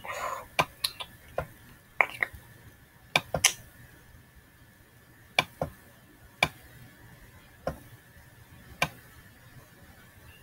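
Computer mouse clicking at irregular intervals while drawing on screen, about fourteen sharp clicks, some in quick pairs. A short breathy puff comes right at the start.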